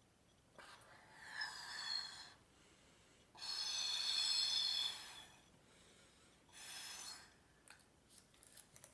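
Air blown through a straw into stretchy slime to inflate a bubble: three long puffs, the middle one the longest and loudest, with a thin whistle in the airflow. A few soft clicks come near the end.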